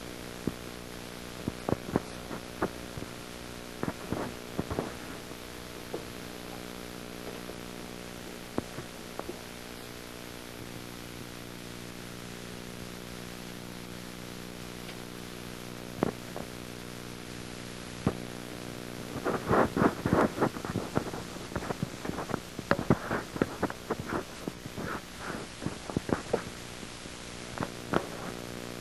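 Steady electrical hum with even overtones under a light hiss, with scattered clicks and crackles and a dense run of crackling about two-thirds of the way through.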